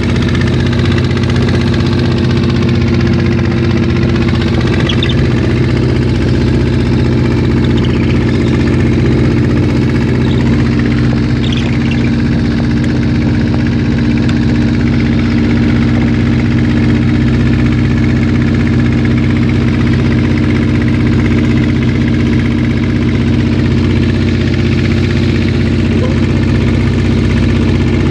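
A boat's engine running steadily at a constant speed, a loud, unchanging hum.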